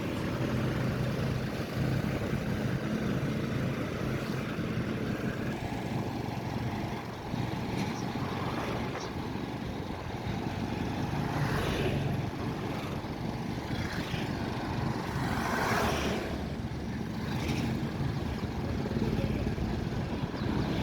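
Motorbike engine running steadily while riding along a road, with a constant low hum and a rushing of road and air noise that swells a few times.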